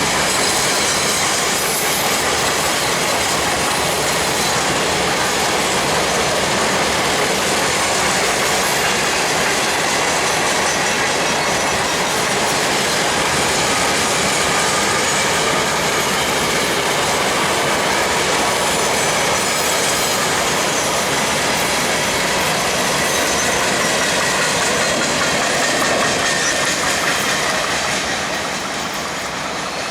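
Long CSX mixed freight train's cars rolling past: a steady, loud noise of steel wheels on rail that eases off slightly near the end.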